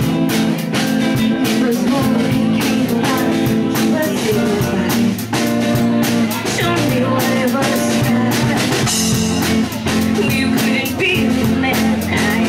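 Live rock band playing: electric guitar and drum kit with a steady beat, and a woman singing.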